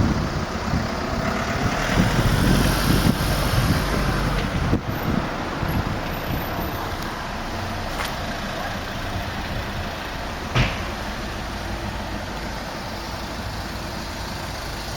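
Town street traffic: road vehicles passing, louder and rumbling in the first few seconds, with a single short knock about ten and a half seconds in.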